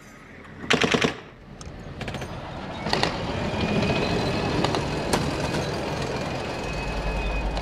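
A short, loud burst of rapid shots, like automatic gunfire, about a second in. Then an armoured vehicle runs with a steady high whine over a rumble, the low rumble growing heavier near the end.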